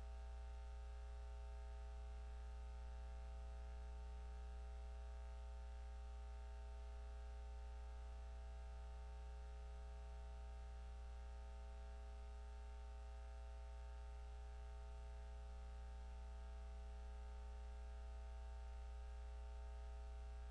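Steady low electrical hum with a faint buzz over it and nothing else, unchanging throughout.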